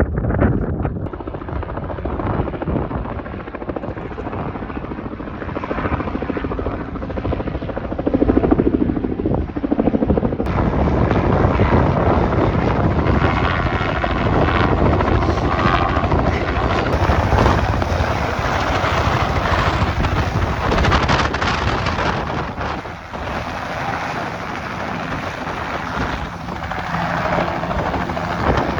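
Helicopter running: steady, loud rotor and engine noise.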